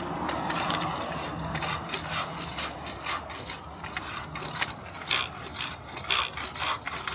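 Manual pole saw's pruning blade rasping back and forth through a tree branch in uneven strokes.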